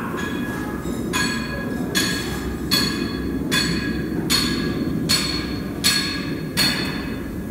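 Sharp, ringing metal-on-metal clanks at a steady pace, about eight of them, one every three-quarters of a second, over a steady machinery hum.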